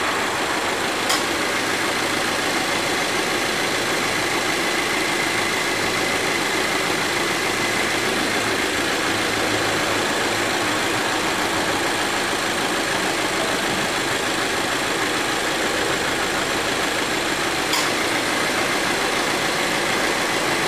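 2018 Subaru Forester's boxer engine idling steadily with the air-conditioning compressor running, free of the abnormal noise it made on engagement before the repair. Two brief clicks are heard, about a second in and again near the end.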